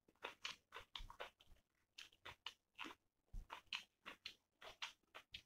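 Close-miked chewing: soft, wet mouth smacks and clicks of someone eating chicken curry and rice, coming irregularly about two to three times a second.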